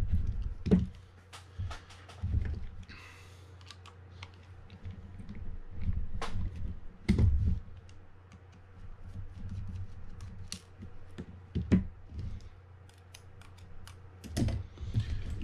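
Irregular light clicks and taps of small tools and metal reel parts, with a few dull thumps of handling, as the screw and nut holding a Penn Clash 8000 spinning reel's lock plate are undone.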